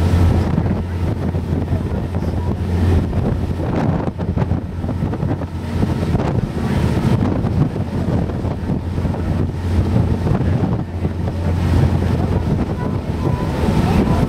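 Boat engine running with a steady low drone, with wind buffeting the microphone and water rushing past.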